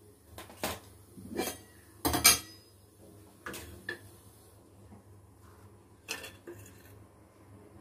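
Scattered knocks and clinks of pots and kitchen utensils being handled, the loudest a pair about two seconds in.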